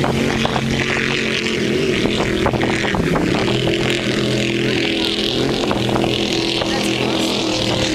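Racing powerboat engines running out on the water, a steady multi-toned engine note whose pitch shifts and dips as the boats pass.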